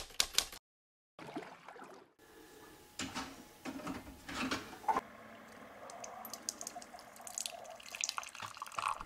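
Water pouring and trickling into a ceramic mug from a single-serve pod coffee maker, with a few knocks of handling along the way. A quick run of sharp clicks opens it, followed by a brief silence.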